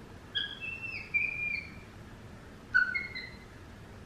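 Capuchin monkey giving high-pitched chirping peeps: a run of short, slightly falling notes starting about half a second in, and a second shorter run near three seconds.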